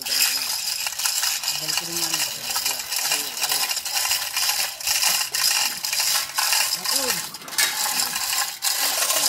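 Manual chain hoist (chain block) being worked by its hand chain, with a large bronze propeller hanging from it: a continuous rapid clatter of chain links and ratchet clicks that starts abruptly.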